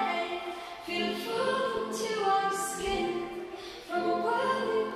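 Choral music: several voices singing long held notes with little or no accompaniment.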